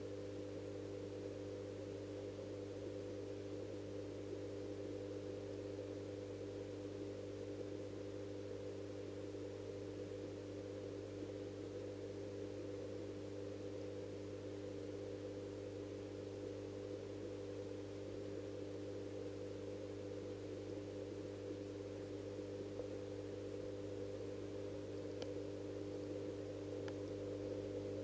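Steady electric hum of a pond pump heard underwater. It holds a low drone with several steady overtones above it and does not change, with a couple of faint ticks near the end.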